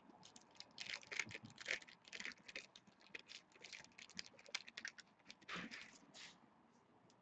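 Clear plastic bag crinkling as it is handled: a dense run of small, quick crackles that stops about six seconds in.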